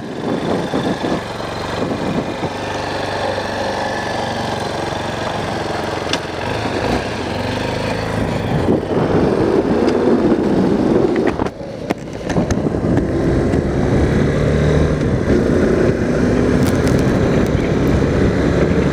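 2008 Honda CRF230L's single-cylinder four-stroke engine pulling away and accelerating along a road, heard from a camera inside the rider's helmet. It grows louder about nine seconds in, with a brief dip in the engine sound at about eleven and a half seconds.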